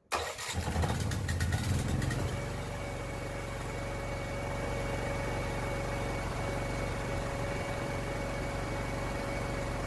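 Honda GX390 single-cylinder four-stroke engine starting up with its choke worked by a 12 V linear actuator. It fires abruptly, runs rough and uneven for about two seconds, then settles into a steady run with a faint steady whine.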